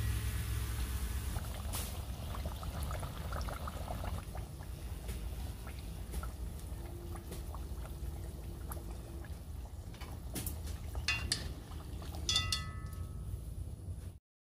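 Samosas deep-frying in hot oil: steady bubbling and crackling over a low rumble, with metal tongs clicking and clinking against the pot a few times near the end. The sound cuts off suddenly just before the end.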